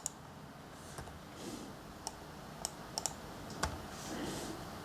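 Faint, irregular clicks of a laptop's keys and mouse buttons: about six separate sharp clicks spread over the few seconds.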